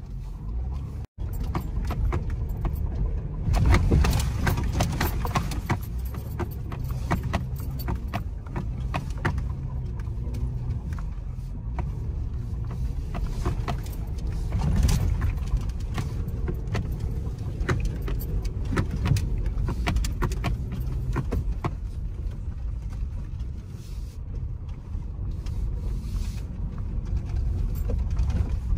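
SUV engine running at low crawling speed, heard inside the cab, with frequent rattles and knocks from the body and loose items as it bumps along a rough, narrow dirt trail.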